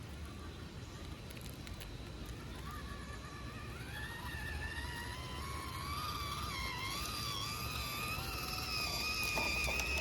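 Electric motor and gearbox of a 1/18-scale FMS FCX18 Chevrolet K10 RC crawler whining, coming in a couple of seconds in, its pitch wavering and rising and growing louder toward the end, over a steady low rumble.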